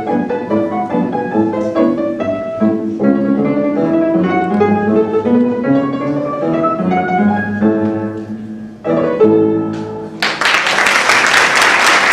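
Solo upright piano played, the piece closing on a final chord about nine seconds in. From about ten seconds in an audience applauds.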